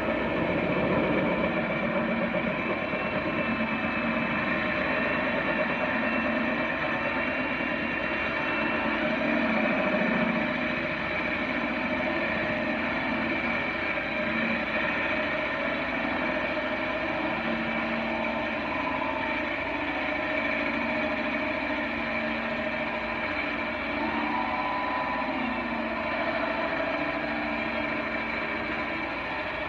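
Cordless drill running steadily with a carbide bit grinding through the wall of a water-wetted glass liquor bottle, the hole nearly through.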